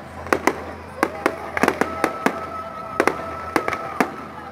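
Diwali fireworks and firecrackers going off in rapid, irregular bangs, about a dozen sharp cracks, some in quick clusters.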